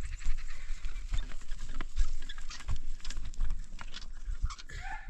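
Stone roof roller being pulled over a straw-covered earthen roof: scattered crunches and clicks over low rumbling. A rooster begins to crow right at the end.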